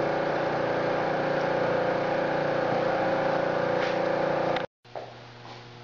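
Steady drone of running machinery with a held whine, cutting off suddenly about four and a half seconds in; afterwards only a quieter electrical hum.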